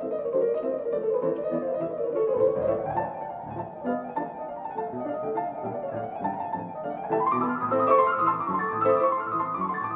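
Background piano music: a fast classical-style piece of quick running notes, the melody moving up higher about seven seconds in.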